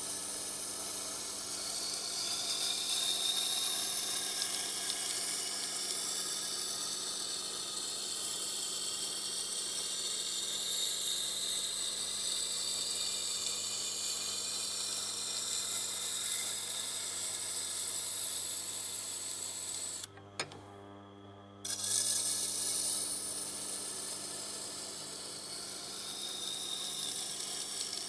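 Tormek wet grinder with a knife edge held against the turning wet grindstone, a steady hissing grind over the low hum of the motor, establishing a new bevel to grind out chips in the edge. The grinding stops for about a second and a half roughly two-thirds through while the hum carries on, then resumes.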